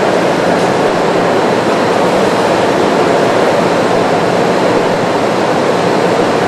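Steady, loud industrial background noise of a large hangar, an even rushing hum with no breaks or distinct knocks, such as ventilation and machinery running while a shuttle main engine is installed.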